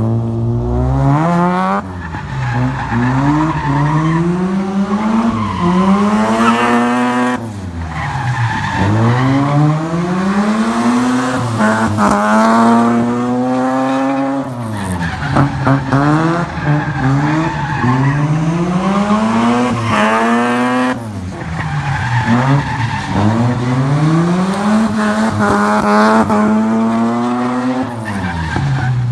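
Mazda RX-7 (FC) drift car's rotary engine revving hard, climbing and dropping back over and over as the car slides in circles on wet asphalt, with tire squeal and spray underneath. The revs fall off sharply every several seconds before building again.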